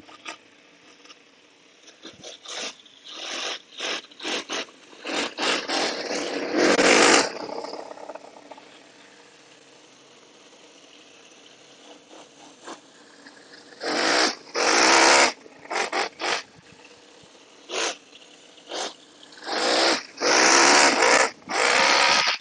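Quarter-scale Conley-clone model V8 engine in an RC car idling and revving in repeated throttle bursts: a quick run of short blips a few seconds in, then a lull at idle, then longer, louder revs. The carburettor is set very rich.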